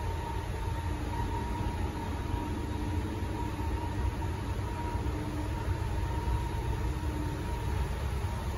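Public escalator running, heard from on it: a steady low mechanical rumble with a constant high hum over it.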